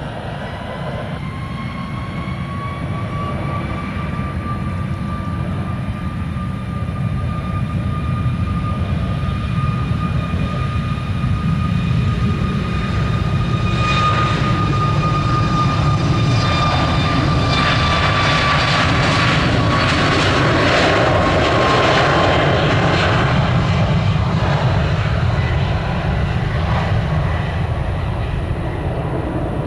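Boeing 737 MAX jet engines at high thrust as the airliner rolls past on a wet runway. A steady whine grows louder and drops in pitch as the plane goes by, and a rushing roar of engine noise and runway spray swells from about two-thirds of the way in.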